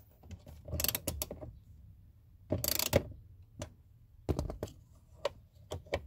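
Small clicks and scrapes of a grounding screw and its ground wire being worked by hand into the plastic lower dash panel, with one louder scrape about two and a half seconds in.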